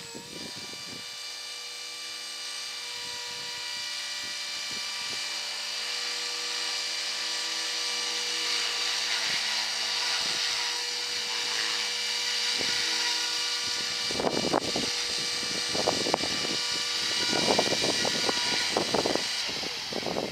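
MiniTitan E325 electric RC helicopter in flight: a steady high whine from its electric motor, gears and rotors, growing gradually louder. From about 14 seconds in, wind gusts buffet the microphone with low rumbles.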